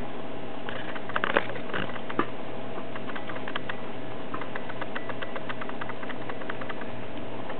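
Plastic exercise ball with a mouse inside rolling across a kitchen floor: many small irregular clicks and rattles, with a few louder knocks about a second in and again a second later, over a steady hum.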